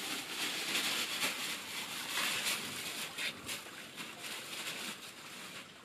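Plastic bag rustling and crinkling as it is handled and carried, a dense run of small crackles that eases off toward the end.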